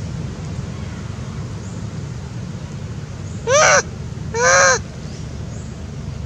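Adult female long-tailed macaque giving two short coo calls, each rising then falling in pitch, a bit after three seconds in, the second slightly longer.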